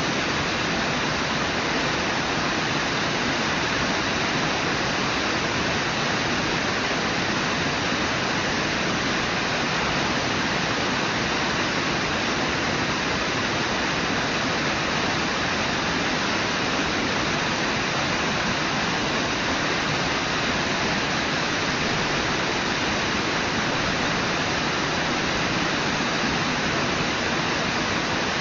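Brooks Falls, a low waterfall on the Brooks River, pouring with a steady rush of water.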